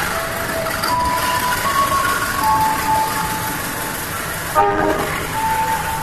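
Passenger train cars passing close by, a steady rumble of wheels on rail, with a melody of held single notes playing over it. About four and a half seconds in, a short horn toot.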